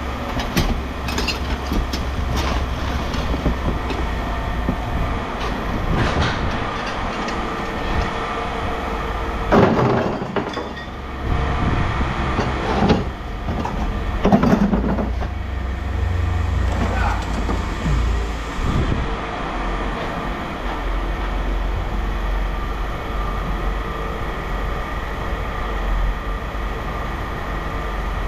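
A heavy engine running with a low, steady rumble, with scattered knocks and several louder short clanks or thuds.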